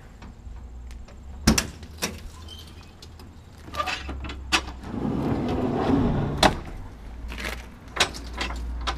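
Clicks and clunks of a rescue truck's metal compartment door and latches, then a slide-out tool tray rattling as it is pulled out and stopping with a clunk. A low steady hum runs underneath.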